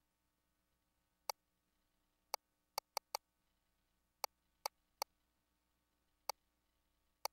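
About ten short, sharp clicks at irregular intervals, some in quick succession, over a faint steady electrical hum.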